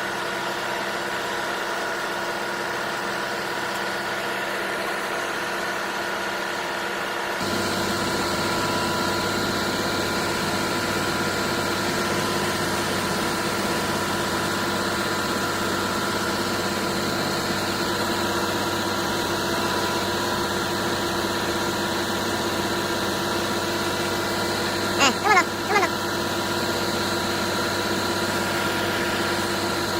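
Hyundai truck's diesel engine on a concrete pump truck running steadily, getting louder and fuller suddenly about seven seconds in. Three short sharp sounds in quick succession near the end.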